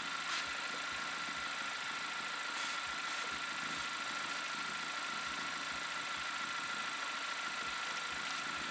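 Parked 10th-generation Honda Accord running, a steady mechanical hum with a thin steady whine above it.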